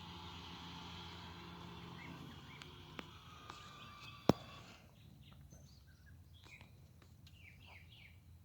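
Mighty Mule 371W gate opener's actuator motor running with a steady hum, then a sharp click a little past four seconds in as it stops. Afterwards, birds chirp.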